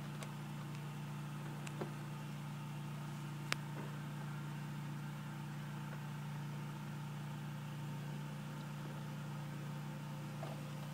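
A steady low hum, with a couple of faint clicks in the first few seconds.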